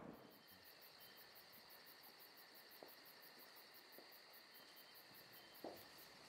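Near silence: a faint, steady high whine with a rapid faint pulsing above it, about five pulses a second, and a few soft taps, the clearest near the end.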